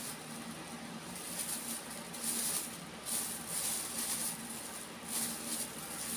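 Thin plastic carrier bag rustling and crinkling in irregular bursts as packed dried fish is pulled out of it and the bag is handled.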